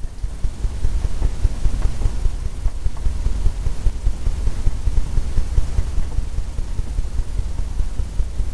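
Paintbrush scrubbing and dabbing oil paint on a stretched canvas: an uneven low rumble made of many small, quick knocks.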